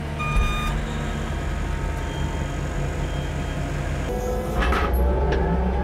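Engine of a rough-terrain scissor lift running steadily, with a short alarm beep near the start. About four seconds in, the engine loads up and a higher whine joins as the lift platform is raised.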